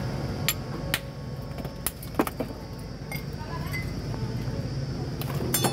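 Sharp clinks and knocks as slabs of ice and glass soda bottles are moved in an ice box, a handful of separate strikes over a steady hum of street traffic.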